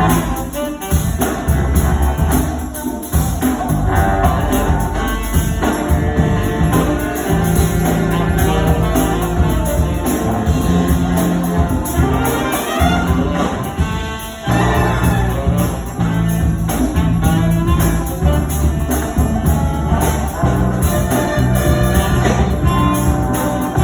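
A high school big band with brass playing an up-tempo jazz tune. The ensemble drops out briefly about fourteen seconds in, then comes back in full.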